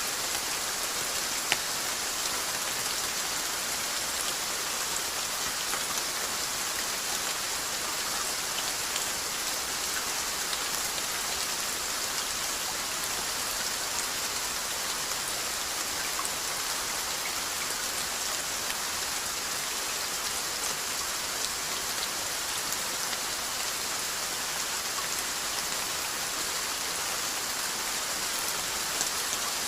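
Steady rainfall, an even hiss of drops on a surface with scattered individual drop taps and one sharper tap about a second and a half in.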